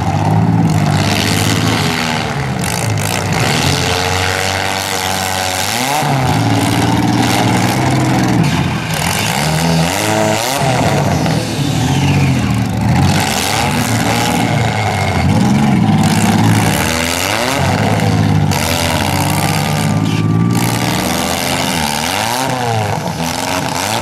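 Several demolition-derby compact car engines revving up and down over and over, their pitches overlapping, as the cars push against each other.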